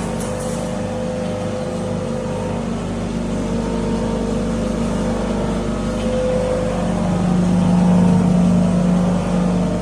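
Poultry feed grinder machine running steadily with a constant mechanical hum, swelling slightly louder about eight seconds in.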